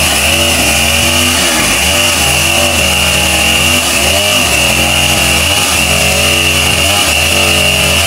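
Two-stroke chainsaw running hard while cutting a mahogany log, its engine pitch dipping and recovering several times under load.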